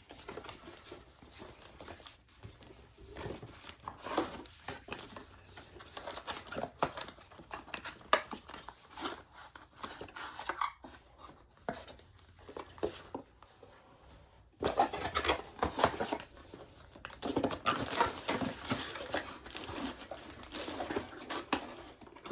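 Packaging being handled while unboxing a camera kit: irregular rustling, crinkling and light clicks of cardboard, plastic bags and accessories being taken out and set down, growing busier about two-thirds of the way through.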